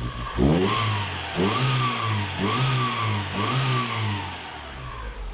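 Car engine revved by hand four times in quick succession, each blip rising and falling about a second apart, then dropping back to idle.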